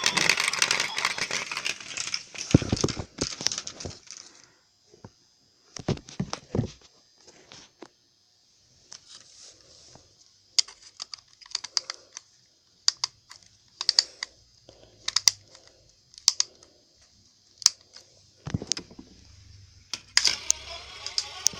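Hard plastic toy parts being handled, giving scattered clicks and knocks, with a louder clatter at the start. Near the end the toy's speaker starts playing its music again.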